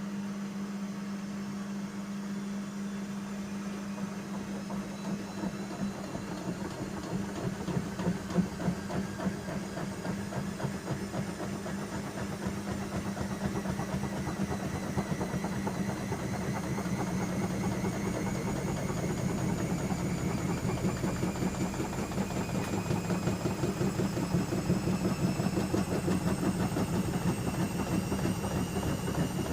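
Bauknecht Super Eco 6413 front-loading washing machine speeding its drum up toward a spin: a motor whine rising slowly in pitch over a growing rumble, with a steady hum underneath.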